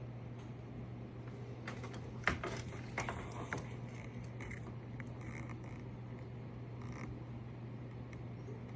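Yarbo robotic lawnmower running with a steady low hum, with a cluster of sharp clicks and knocks about two to three and a half seconds in and another click near the end.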